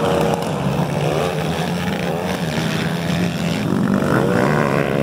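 Several motocross bikes' engines revving hard as they race past, the pitch climbing and dropping again and again as the riders accelerate and shift, several engines overlapping.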